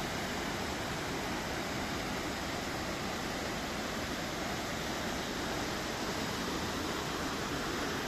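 Waterfall's steady, even rushing noise.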